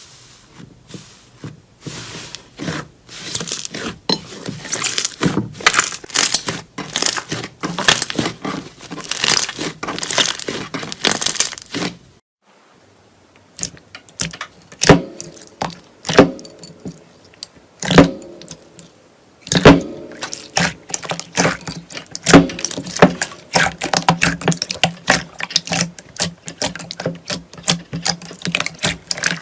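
Slime being handled, squeezed and stretched, giving dense crackling and popping clicks. They break off about twelve seconds in, then come back as a few sharp, separate pops before the dense crackling picks up again.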